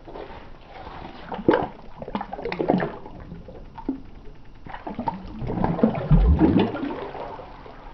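A smallmouth bass released into a hole in the ice, splashing and sloshing the water as it swims off. The loudest splashing comes about five to seven seconds in.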